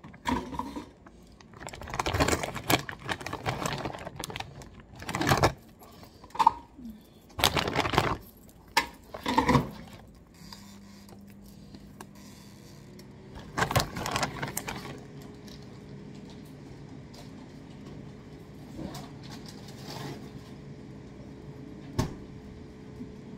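Plastic bag of frozen crumbed fish pieces crinkling and rustling as it is handled, with knocks and rattles. About ten seconds in, an air fryer starts and runs with a steady hum, its pitch rising a little as the fan spins up. A single sharp click comes near the end.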